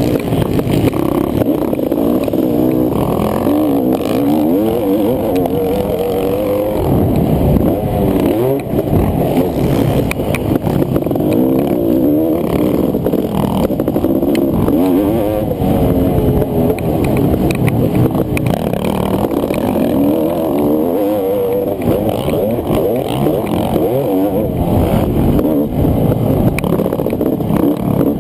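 Honda CR500's 491cc single-cylinder two-stroke engine running hard on a motocross track, its pitch rising and falling over and over as the throttle opens and closes through corners and straights.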